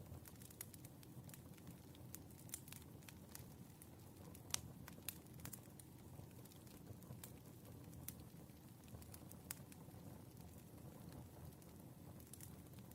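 Wood fire burning softly: firewood crackling with a low steady rush and irregular sharp pops, the loudest about four and a half seconds in.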